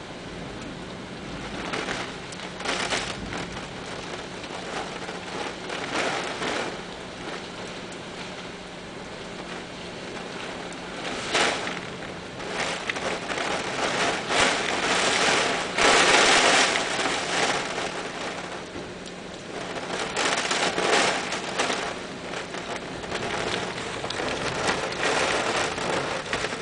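Heavy rain pouring steadily, swelling louder in waves several times and heaviest about two-thirds of the way through.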